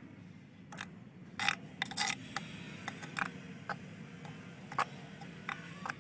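A metal spoon stirring a thin sauce in a clay pot, clinking and scraping against the pot's sides in irregular clicks, over a low steady hum.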